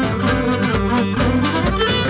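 Live Cretan traditional dance music: a bowed string instrument plays the tune over plucked lutes and a steady drum beat.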